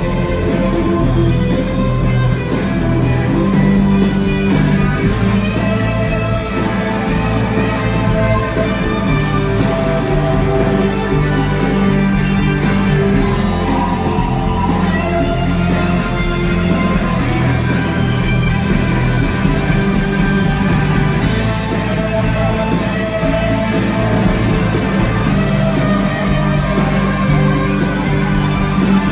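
Live rock band playing loud and steady: electric guitar, bass guitar and drums, heard from within the concert audience.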